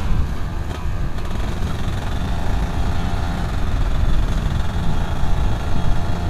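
Yamaha F1ZR 110cc two-stroke motorcycle engine running steadily, fitted with its AHM exhaust, under a dense low rumble.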